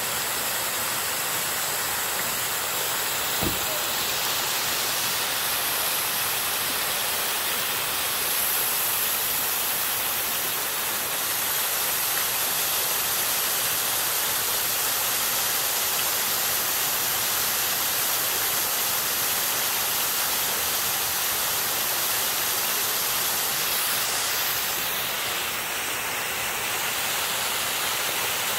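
Water falling steadily in a curtain from a pool fountain's square canopy and from arcing jets, splashing into the basin as an even rush. A single brief low thump about three and a half seconds in.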